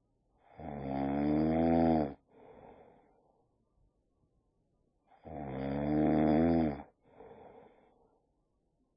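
Boxer dog snoring in its sleep: two loud snores about four and a half seconds apart, each followed by a softer breath.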